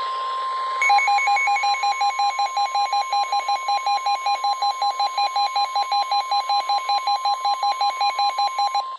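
NOAA Weather Radio's steady 1050 Hz warning alert tone, heard through a Midland weather radio's speaker. It signals that a new warning is about to be read. About a second in, the radio's own alert alarm joins it with rapid beeping, about five or six beeps a second, and both cut off together.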